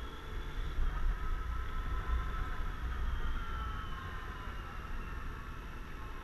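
Suzuki Burgman 650 maxi-scooter's parallel-twin engine running at low road speed, with a faint whine that drifts slowly up and down in pitch. Heavy low wind rumble sits on the helmet-mounted microphone.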